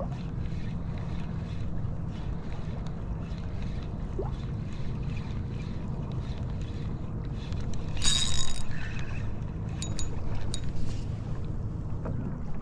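Steady wind buffeting the microphone with water lapping against a kayak's hull. About eight seconds in, a brief loud clatter with a high ring, followed by a couple of sharp clicks.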